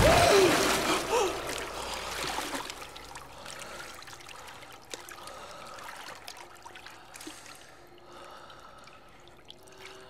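Water splashing and churning, loud at first and dying away over about three seconds into quieter trickling and scattered drips.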